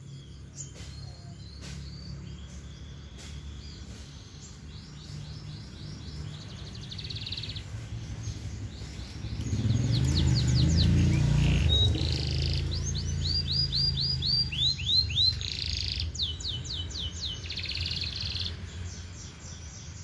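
Domestic canary singing several phrases of fast, evenly repeated trilling notes. About halfway through, a passing motorcycle's engine rises and falls and is briefly the loudest sound.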